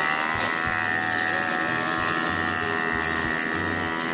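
E Ton TXL 50 mini ATV's small engine running at steady high revs, a buzzy drone, as it pulls a trailer cart.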